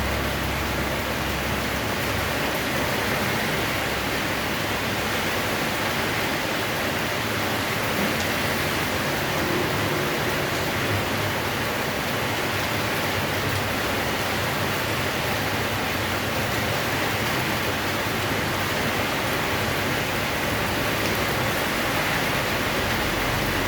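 Rain falling steadily, a dense even hiss with no change in strength.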